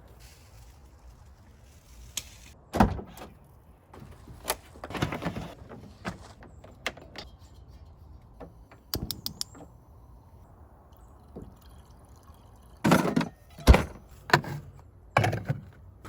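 Scattered knocks, clicks and rustling of gear being handled, with a quick run of small clicks about nine seconds in and the loudest knocks about three seconds in and near the end.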